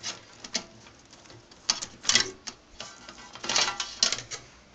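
Handling noise: a handful of short clicks and knocks at irregular intervals as parts and wires of a TV's CRT assembly are handled.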